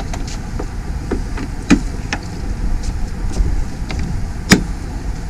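Steady low outdoor rumble with a few sharp knocks and clicks, the loudest about a second and a half in and again near the end.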